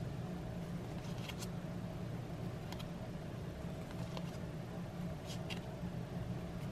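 Baseball trading cards being flipped through by hand, a few short flicks and slides of card against card, over a steady low hum.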